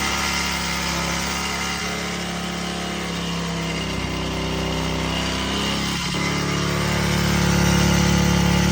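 Coolster 125cc ATV's freshly swapped-in single-cylinder four-stroke engine idling steadily, picking up speed and getting louder about six seconds in.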